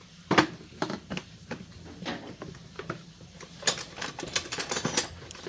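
Irregular clicks and knocks of hard objects being handled, the loudest about half a second in and a rapid clatter of them near the end.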